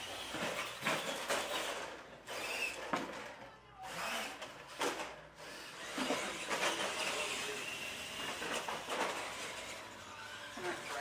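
Radio-controlled monster trucks racing, their small electric motors whining up and down in pitch with the throttle. Tyres scrub on the floor, and there are several short knocks from the trucks hitting and landing off ramps.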